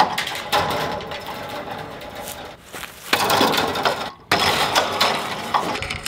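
Steel fence wire and a fence-tensioning tool being worked by hand at an inline wire strainer: continuous scraping and rattling of metal, breaking off briefly about four seconds in.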